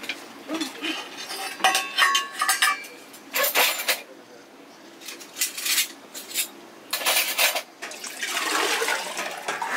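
Metal pots and utensils clinking for the first few seconds, then water splashing and pouring in several short bursts.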